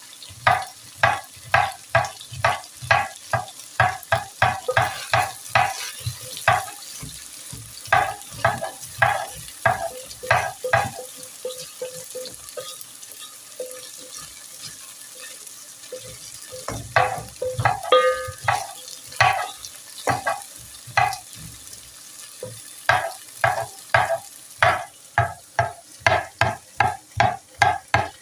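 Knife chopping garlic on a cutting board: quick, regular knocks about three a second, in several runs with short pauses. Underneath, a steady sizzle of meat frying in the pot.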